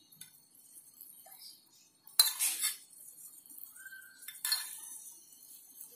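Steel spoon clinking against a steel pan and plate while syrup is spooned over dhokla: two sharp ringing clinks about two seconds apart, with a few faint ticks between.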